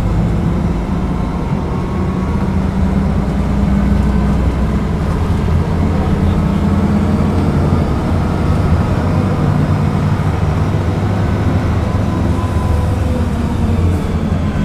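The diesel engine of a Mercedes-Benz O500UDA articulated bus running steadily: a loud, low drone whose pitch shifts a little.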